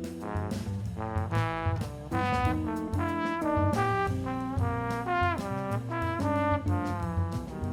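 Music: a saxophone playing a melody of separate, sometimes gliding notes over a backing track with bass and a beat.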